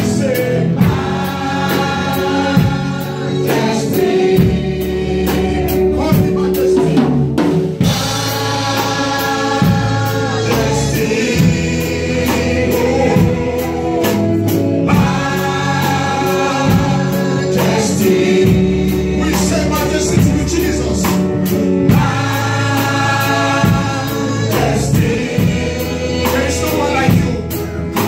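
Live gospel worship band: several singers on microphones singing together over a drum kit and guitar, with a steady drum beat.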